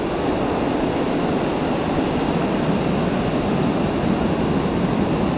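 Steady rush of ocean surf breaking and washing up a shallow sandy beach.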